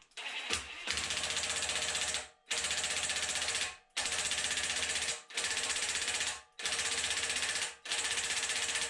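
A tool tightening a bolt on the engine, likely a pulley bolt: five bursts of rapid clicking, each about a second long, with short pauses between.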